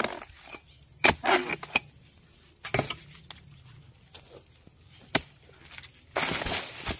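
Dry oil palm fronds rustling and cracking as they are pushed aside by hand, with a few separate sharp knocks and a longer burst of rustling near the end.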